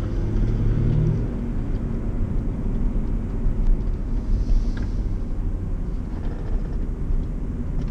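Steady low rumble of engine and road noise heard from inside a Land Rover's cabin as it drives along at road speed.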